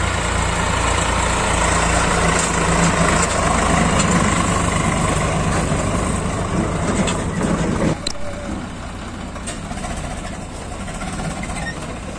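Swaraj 744 FE tractor's diesel engine running hard, hauling a fully loaded trolley through mud. About eight seconds in the sound drops suddenly to a quieter, steadier engine.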